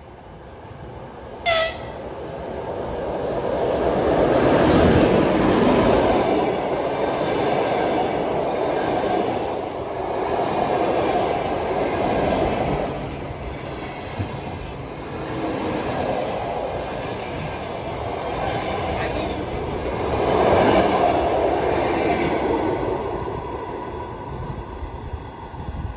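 Locomotive-hauled passenger train passing close by at speed. A short horn toot comes about a second and a half in. The locomotive's rumble builds to its loudest a few seconds later, then a long string of coaches follows, the wheels clacking over rail joints in repeated swells as each car goes by.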